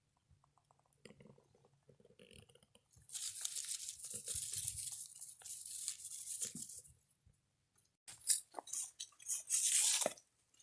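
Crunching and rustling footsteps through dry leaf litter: a few seconds of steady shuffling crunch, then a run of separate crunchy steps near the end.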